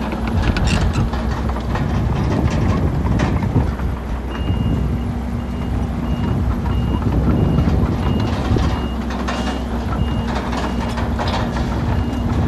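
Diesel engines of earthmoving machines running, a bulldozer and dump trucks, with scattered clanks and rattles of stone and metal. From about four seconds in, a back-up alarm beeps steadily, a little under two beeps a second.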